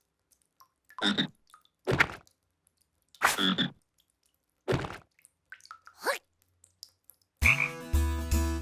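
Animated cartoon voice effects: about six short croaking calls spaced through the first six seconds. About seven and a half seconds in, a held, buzzing sound with many steady tones and a deep bass comes in.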